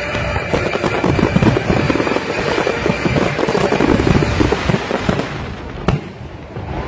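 Fireworks going off in a dense, rapid crackle of bangs that eases off after about five seconds, with one last sharp bang near the end.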